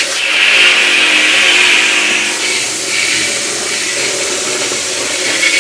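Water from a hose spraying into the washing machine's inner tub around the agitator hub, a steady loud hiss that eases slightly about halfway through.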